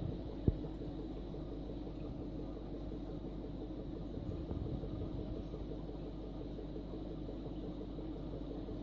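Aquarium pump humming steadily, with a faint fast even rattle, and a single click about half a second in.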